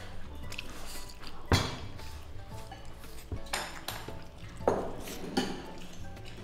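Wooden chopsticks clicking against a ceramic rice bowl a few times as rice is scooped out, with sharp clicks about a second and a half in and near five seconds. Soft background music plays underneath.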